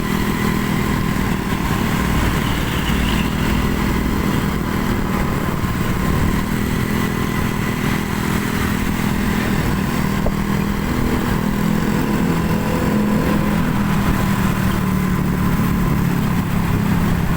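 Motor vehicle engines running steadily on the road, a continuous low drone with no sudden changes.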